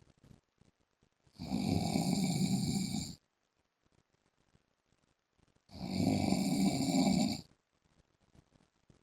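A man snoring loudly and regularly: two long snores, each lasting nearly two seconds and about four seconds apart, with faint breathing between them.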